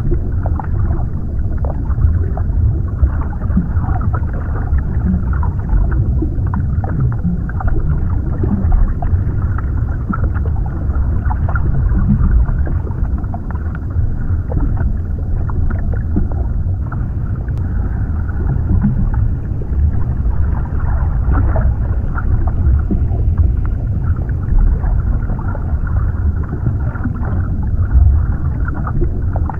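Underwater ambience: a steady, muffled wash of deep rumbling water noise, dulled in the highs, with small clicks and crackles scattered through it.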